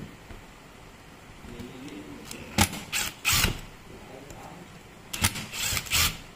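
Cordless Makita driver running in short bursts, backing out the housing screws of an impact wrench: three quick runs a little over two seconds in, then three more near the end.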